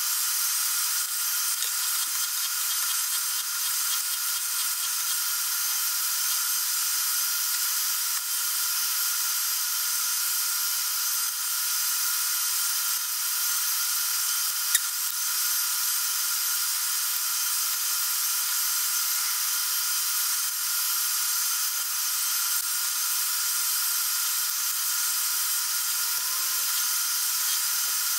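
Milling machine running steadily with a high-pitched whine and hiss while it takes small cuts to form the lobes of a model-engine camshaft held in a dividing head. A single sharp click about halfway through.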